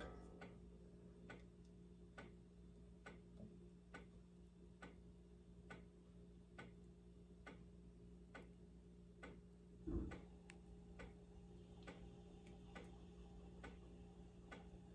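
Faint, even mechanical ticking, a little faster than once a second, over a low steady hum, with one soft knock about ten seconds in.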